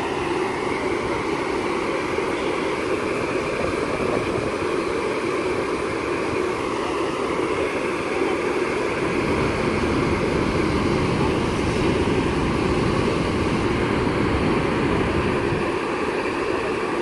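Loud, steady wind rush with a flickering low rumble.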